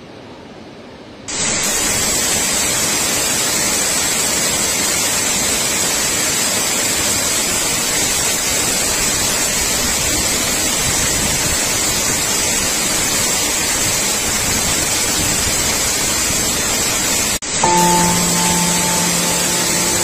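Steady rush of a waterfall in full flood. It is fainter for about the first second, then jumps louder and holds even. Near the end a few held music notes come in over it.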